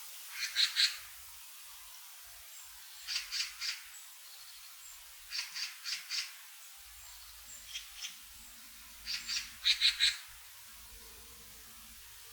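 Forest bird giving harsh calls in quick groups of three or four, repeated every two to three seconds, with faint thin high notes from another bird between them.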